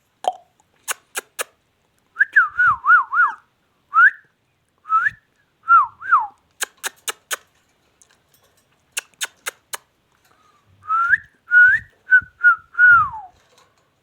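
Ringneck parakeet whistling in short runs of gliding, wavering notes, with clusters of sharp clicks in between.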